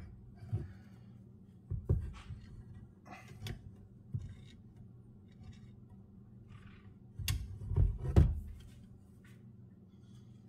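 Scattered knocks and clunks of a riding mower's metal deck lift lever and tools being handled, with a cluster of louder knocks about eight seconds in, over a faint steady low hum.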